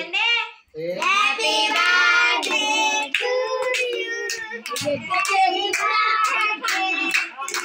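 A child singing in a high voice, with held, wavering notes. It breaks off briefly just before the first second, then carries on.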